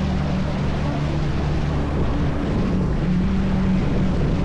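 Motorised bangka outrigger boat's engine running at a steady drone, under a constant rushing hiss of wind and water.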